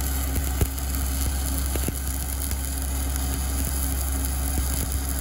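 Stick-welding arc from a 7018 electrode burning steadily, a continuous crackle with a few sharp spatter pops in the first two seconds, over a steady low hum.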